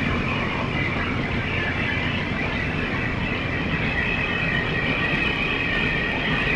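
Freight train's flatcars, loaded with army trucks, rolling past: a steady rumble of wheels on rail with a high, steady squeal-like tone over it.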